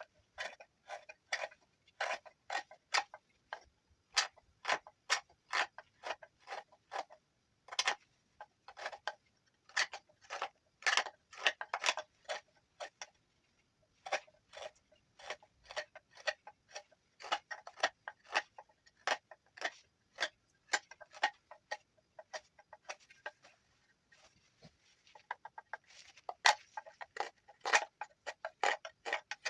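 Knife whittling juniper wood: a run of short, crisp slicing cuts, about two to three a second, with a couple of brief pauses.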